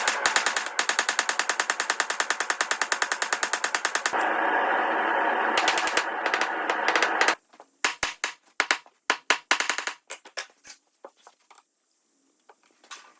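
Hammer blows on the steel being forged, coming fast and evenly, several a second, for about four seconds. Then a steady rushing noise for about three seconds, then a scatter of light clicks and taps that dies away to near silence.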